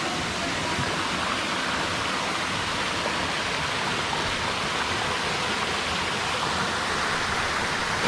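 Water of a waterfall-fed stream rushing steadily over rocks and shallow cascades, a constant even rush.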